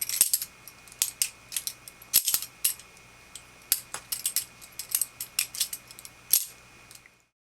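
Balisong (butterfly knife) being flipped in a continuous loop: quick, irregular metallic clicks and clacks as the handles swing around the pivots and strike each other. A faint steady hum sits under the clicks.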